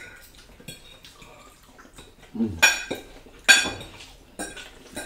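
Metal forks scraping and clinking against plates while eating: several sharp, short clinks with a brief ring, the loudest about two and a half and three and a half seconds in.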